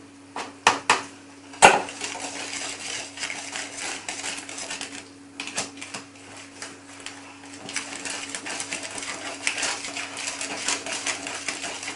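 Hand wire whisk beating sponge-cake batter in a plastic bowl: fast, continuous ticking and scraping of the wires against the bowl, with a few sharp knocks in the first two seconds. A dishwasher hums steadily underneath.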